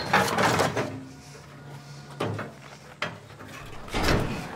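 Barred metal cell door and its rusty lock being worked open: scraping and clicks, a sharp click about three seconds in and a heavier clunk near the end.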